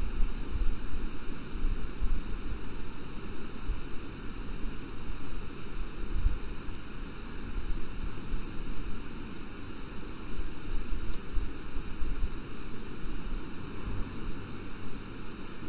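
Steady background hiss with a faint hum and an uneven low rumble.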